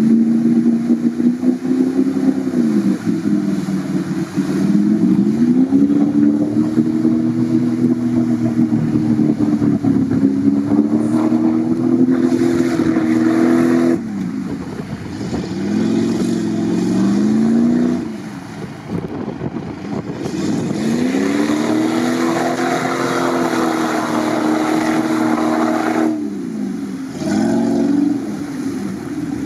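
Jeep Grand Cherokee WJ engine revving hard and easing off again and again, a few seconds per swell, as it pushes through wet peat bog. Mud and water spray from the spinning wheels. The sound breaks off abruptly a few times.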